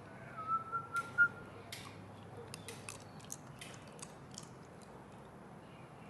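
German Shepherd puppy chewing on a hard lollipop: a run of sharp, irregular crunching clicks as its teeth hit the candy. A brief high squeak comes in the first second.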